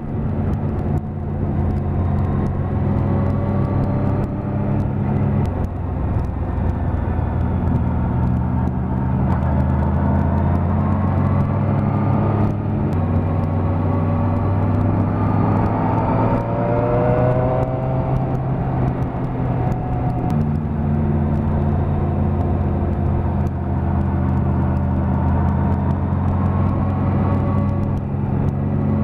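Suzuki GSX-R750's inline-four engine running at a steady cruise, heard from on board the motorcycle. Its engine note steps in pitch a few times.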